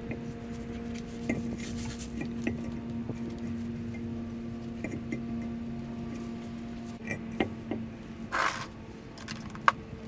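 Handling noises as a steel wheel is set onto the hub studs: light scrapes and small metal clicks, with a longer scrape about eight and a half seconds in and one sharp click near the end. A steady low hum runs underneath.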